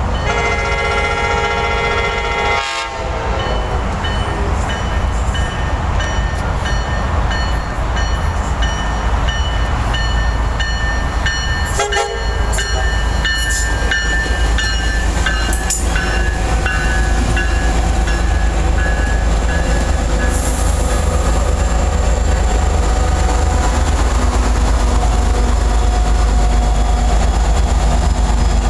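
Tri-Rail commuter train sounding one horn blast of about two and a half seconds, then rolling past with its bi-level coaches' wheels clacking over the rails. The running noise grows louder near the end as the diesel locomotive at the rear passes close by.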